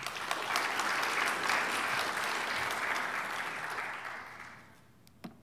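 Audience applauding, steady at first and fading out about four and a half seconds in.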